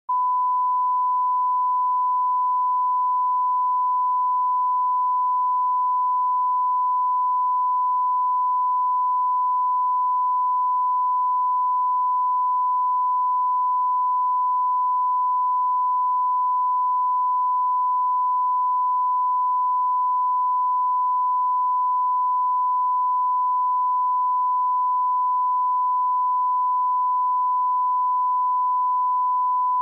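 Steady 1 kHz line-up tone played with SMPTE colour bars: one unbroken pure test tone that serves as the broadcast audio reference level.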